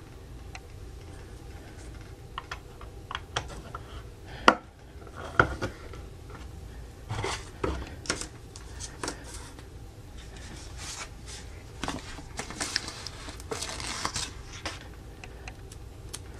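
Small plastic Playmobil parts being handled and snapped together: irregular clicks, taps and light clattering over soft handling noise, with a couple of sharper knocks about four and a half and five and a half seconds in.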